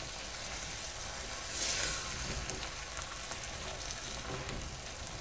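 Chicken wing pieces sizzling in a pan of onion and tomato curry base as they are stirred in. The sizzle swells briefly about one and a half seconds in.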